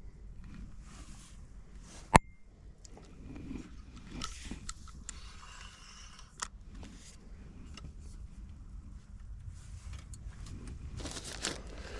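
Gear being handled close to the camera: irregular scrapes, rustles and small clicks, with one sharp click about two seconds in.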